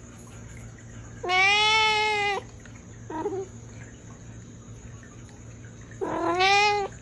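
A cat meowing: a long meow about a second in, a short faint one soon after, and another long meow near the end.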